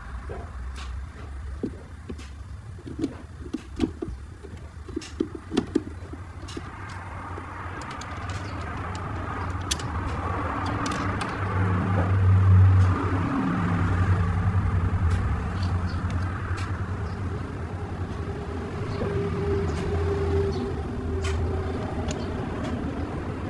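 A few light clicks and taps, then a steady low mechanical rumble that swells about halfway through and carries on.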